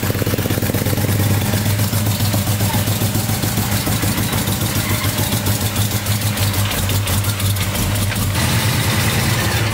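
V8 engine of a Chevrolet C10 squarebody pickup idling with a misfire, running on seven cylinders.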